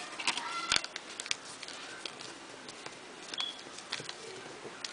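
Origami paper being folded and creased by hand: soft crinkles and small crackles of the sheet, busiest in the first second, then scattered light ticks.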